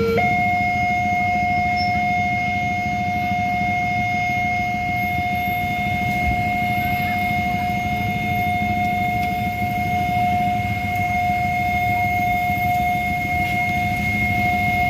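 Railway level-crossing warning siren, the faulty one, jumping to a higher pitch right at the start and then holding one steady unbroken tone, over a steady low rumble.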